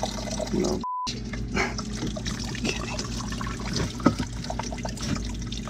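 Water trickling at a leaking boat propeller shaft seal while it is worked on by hand, over a low steady hum. A short beep sounds about a second in, and a sharper click comes near four seconds.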